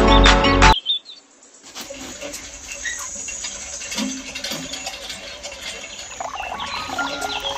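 Guitar music cuts off about a second in. After a short pause comes a soft, steady patter and trickle of water with small chirps scattered through it, from a miniature hand pump's spout running into a plastic trough; it grows busier near the end.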